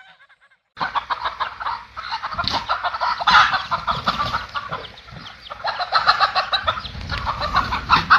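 Chickens clucking, many calls overlapping in a dense, continuous racket that starts suddenly about a second in.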